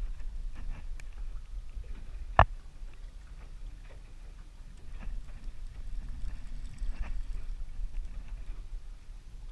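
Water slapping against a small boat's hull, with a low rumble of wind on the microphone and light scattered ticks. One sharp knock about two and a half seconds in is the loudest sound.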